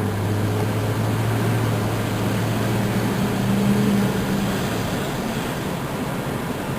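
Car driving along a road: steady engine hum and road noise, with the low hum fading about five seconds in.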